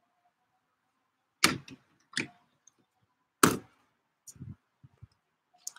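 Sharp knocks and clatter from objects being handled off-screen: two loud knocks about two seconds apart, a smaller one between them, and a few softer knocks near the end.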